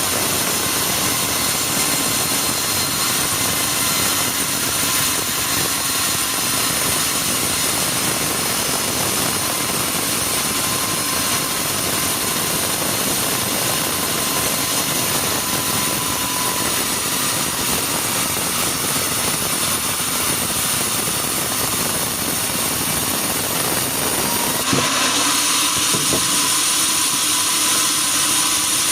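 Sawmill machinery running steadily, with a sudden change in its sound about 25 seconds in.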